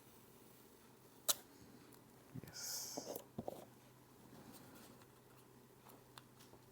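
Small plastic handling noises from a wireless microphone's charging case being opened and its parts taken out. There is a single sharp click, then about two and a half seconds in a brief scraping rustle with a few light knocks, and faint ticks afterwards.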